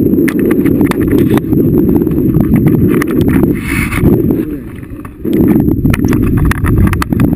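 Wind buffeting the microphone of a handheld action camera during a paraglider flight: a loud, low rumble full of rapid clicks and rattles, easing off briefly about five seconds in.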